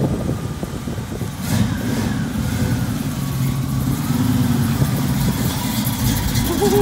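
First-generation Chevrolet Camaro SS's V8 running at low speed as the car rolls past, a steady low rumble.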